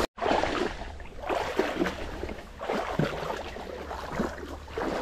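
Water splashing and gurgling around a small boat moving on a river, in irregular strokes over a steady low rumble. The sound drops out completely for a moment at the very start.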